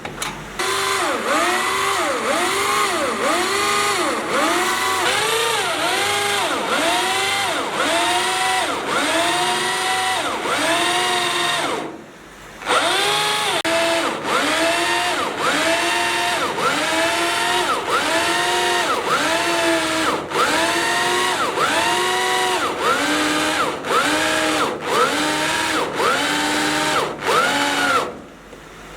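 Power drill boring into steel, its motor pitch rising and falling in a regular cycle about one and a half times a second as the bit bites. It stops briefly about twelve seconds in, starts again, and dies down once more near the end.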